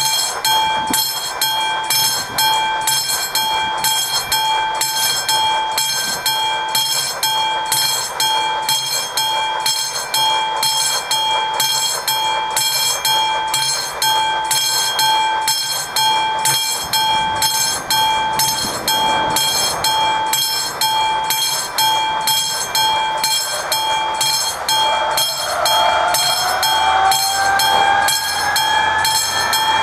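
Classic bell of an AŽD 71 level-crossing warning signal ringing in a quick, even pulse, sounding the warning that a train is due. About 25 seconds in, a rising whine joins it.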